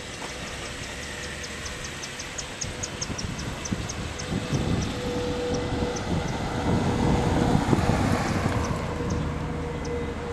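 Outdoor road traffic noise, swelling as a vehicle passes about seven to eight seconds in and easing off afterwards. A run of quick, high ticks in the first few seconds slows and thins out.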